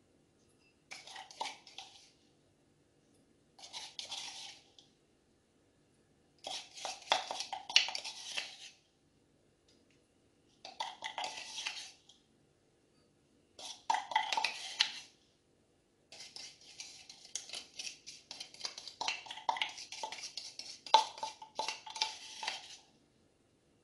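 A spoon scraping and scooping crumbs out of a bowl and dropping them into glass dessert cups, with light clinks of spoon on glass. It comes in about six spells of scraping and clicking with short pauses between; the last spell is the longest.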